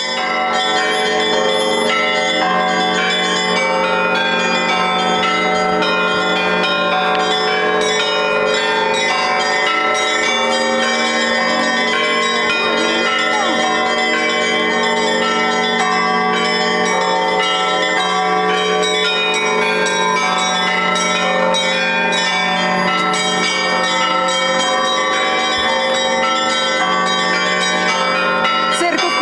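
Russian Orthodox church bells being rung in a continuous, dense peal: many bells struck in quick succession, their tones overlapping over a steady low hum.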